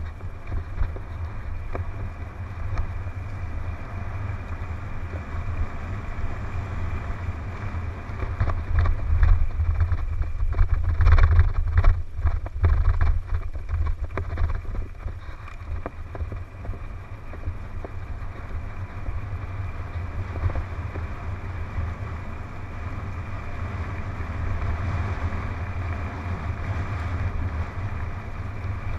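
Wind buffeting a helmet-mounted camera's microphone during a fast mountain-bike descent, over the rumble of tyres on a dirt trail. A rough stretch brings a cluster of rattling knocks from the bike, loudest about ten to thirteen seconds in.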